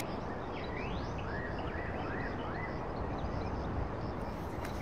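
A songbird gives a short run of about five repeated rising-and-falling notes over a steady background hiss in the woods.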